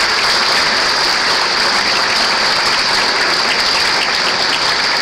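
Congregation applauding, a steady round of clapping.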